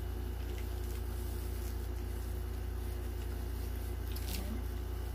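Steady low hum throughout, with a few faint soft squishes and clicks of durian being eaten.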